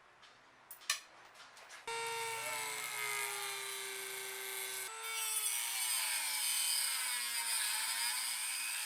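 Power tool, most likely an angle grinder, starting about two seconds in and running with a steady whine, its pitch sagging and then recovering as it bites. It is cutting through seized strut-top nuts that had rounded off.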